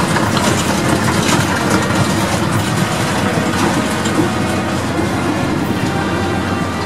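An old J&E Hall escalator running: a steady mechanical rumble and clatter from the moving steps and drive, over a low hum.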